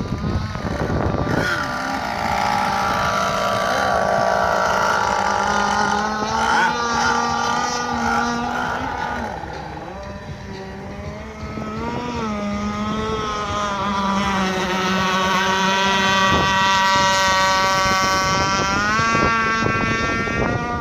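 Zenoah 26cc two-stroke gas engine of an RC speedboat running on the water, its pitch rising and falling with the throttle. It eases off and gets quieter around the middle, then climbs again and rises in pitch near the end.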